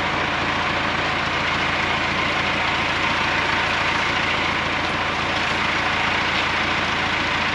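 Tractor engine running at a steady speed, heard up close.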